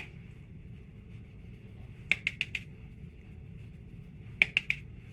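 Sharp clicks in quick runs of about four, heard three times: once right at the start, about two seconds in, and again near the end.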